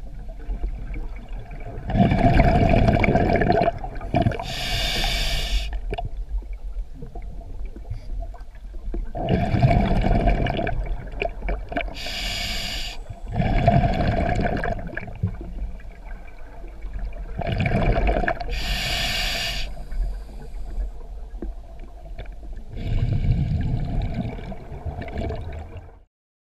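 A scuba diver breathing through a regulator underwater: a hiss on each inhale alternating with a rumbling rush of exhaled bubbles, a breath every several seconds. The sound stops abruptly near the end.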